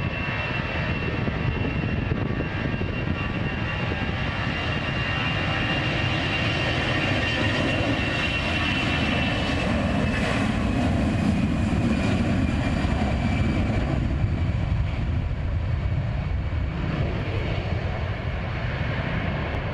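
Airbus A320-214's two CFM56 turbofan engines at takeoff thrust during the takeoff roll. A steady jet rumble carries a high whine, which grows loudest as the airliner passes about halfway through, then dips slightly in pitch and fades as it moves away down the runway.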